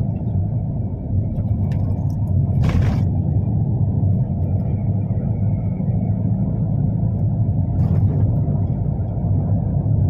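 Steady low engine and road rumble heard inside a moving vehicle's cabin while it drives. Two short hissing bursts come through about three and eight seconds in.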